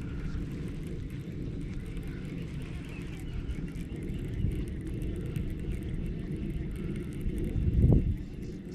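Wind rumbling on the microphone, steady and low, with a stronger gust about eight seconds in.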